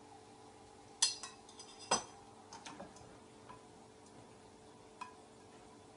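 A metal tablespoon clinking against kitchenware while oil is measured into a tawa: two sharp clinks about one and two seconds in, then a few light ticks, over a faint steady hum.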